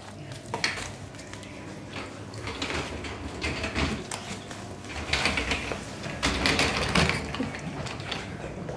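Bengal kittens scampering and play-fighting on a wooden floor: claws scrabbling, scuffling and light knocks in an irregular patter, busiest from about five to seven seconds in.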